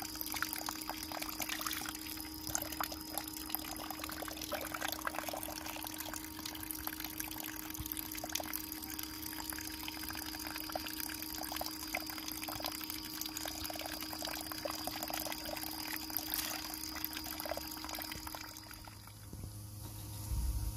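Water splashing and pouring without a break, with a steady hum underneath; it all cuts off shortly before the end.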